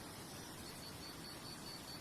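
Faint nature ambience: a steady soft rushing noise, joined about half a second in by a high chirping that pulses about five times a second, like a cricket.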